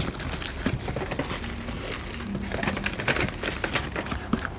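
Clear plastic bags crinkling and cardboard box flaps rustling as hands handle a shipping carton packed with bagged squishy toys, a steady run of small, irregular crackles.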